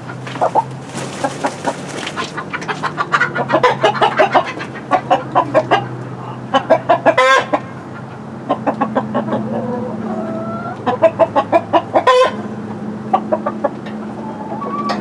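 Chickens clucking in quick runs of calls, with two loud squawks, one about seven seconds in and one about twelve seconds in.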